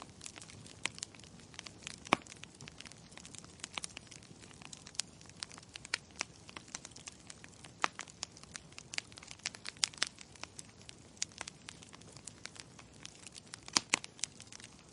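Wood logs burning in a fireplace, crackling and popping irregularly over a low hiss, with a few sharper pops standing out about two seconds in and near the end.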